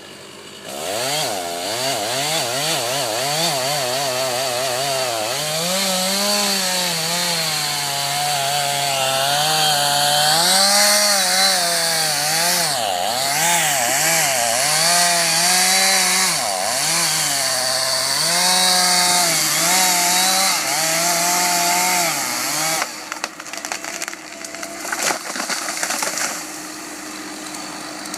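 Two-stroke chainsaw running and revving up and down over and over as it cuts wood, then cutting off. After it stops come a few seconds of uneven cracks and knocks, then a faint steady hum.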